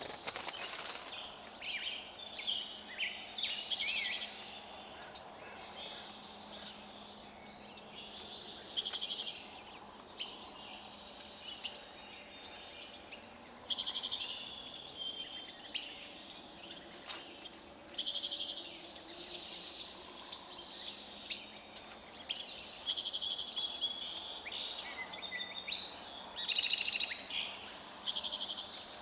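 Forest songbirds chirping and trilling, with short bursts of song every second or two and several birds overlapping, plus a few sharp ticks over a faint steady hum.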